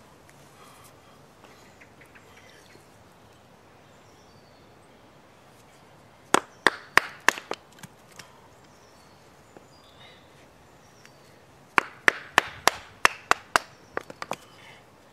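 A green wood baton knocks sharply on the spine of a Casström No. 10 Swedish Forest Knife, batoning wood on a stump. A quick run of about seven strikes comes about six seconds in, and a second run of about nine strikes follows a few seconds later.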